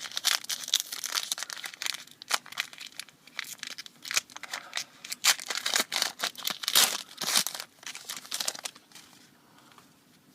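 Basketball trading-card pack wrapper being torn open and crinkled in the hands: a dense run of crackles that stops about nine seconds in.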